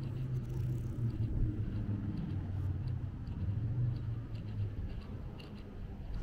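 Low, steady rumble of city street ambience with faint light ticks scattered through it, played backwards.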